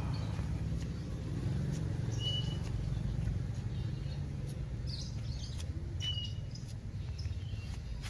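Steady low rumble of background noise, with two short high chirps about four seconds apart and a few faint clicks.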